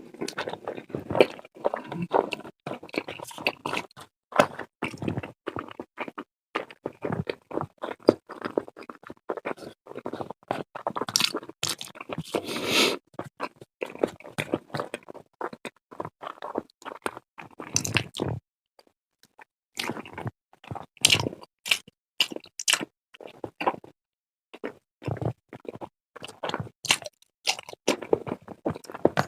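Close-miked eating sounds: a person chewing and biting food, with wet squishy and crunchy mouth sounds in an irregular run, pausing briefly about two-thirds of the way through.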